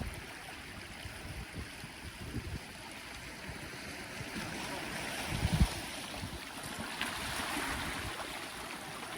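Sea water washing on the shore, with wind buffeting the microphone in a few low thumps about halfway through.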